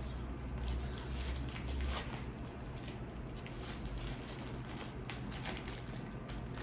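Close-miked crackling and rustling of a Subway sandwich and its wrapper being handled, a run of short crackles, with a low hum that fades about two seconds in.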